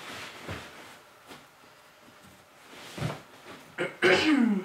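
Cloth shopping bag rustling and soft knocks as it is pushed down into a plastic storage tote, with a sharper knock about three seconds in. Near the end, a short throat-clearing sound from the man, falling in pitch, which is the loudest sound.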